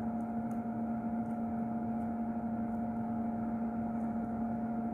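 Steady electrical hum from bench equipment, a low tone with a higher one above it, unchanging throughout.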